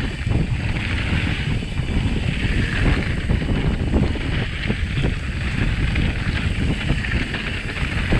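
Wind buffeting the microphone while a mountain bike rides along a trail: a steady low rumble, with a few short knocks and rattles from the bike.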